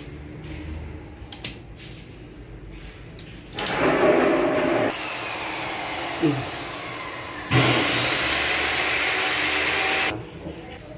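A small motor running in stretches with a faint whine that drifts in pitch, starting and stopping abruptly several times.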